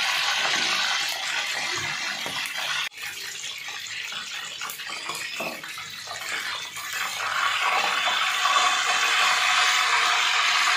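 Whole chicken deep-frying in hot oil in a large aluminium pot, the oil sizzling and bubbling steadily over a high flame to brown the skin. The sizzle breaks off sharply about three seconds in, comes back quieter, and grows louder again for the last few seconds as the chicken is turned and lifted.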